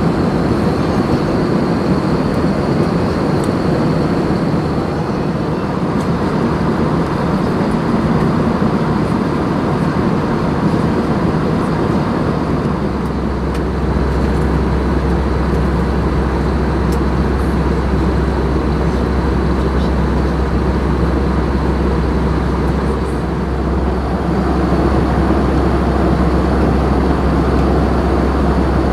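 Steady cabin noise of an Airbus A319 in cruise: a continuous rush of airflow and jet-engine noise. A deeper low hum comes in about halfway through.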